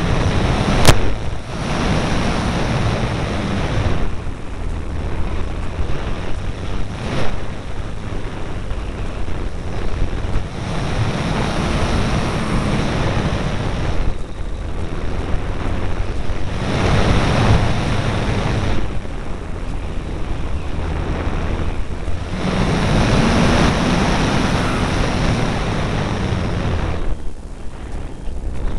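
Airflow rushing over the microphone of a camera riding on an E-flite Apprentice electric RC trainer plane in flight, with the motor and propeller humming underneath. The hum rises and falls in pitch in several surges, and there is one sharp click about a second in.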